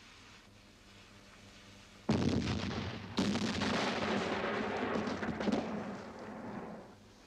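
Two cannon blasts about a second apart, film sound effects of artillery fire and a shell exploding. The second dies away over several seconds.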